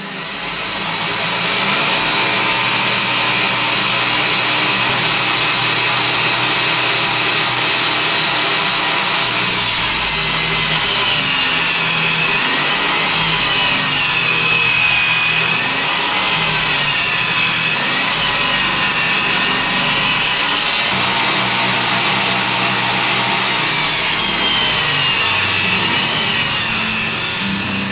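Power saw cutting a sheet of 3/4-inch marine plywood as the board is pushed through it, running continuously with a whine that wavers in pitch under the load.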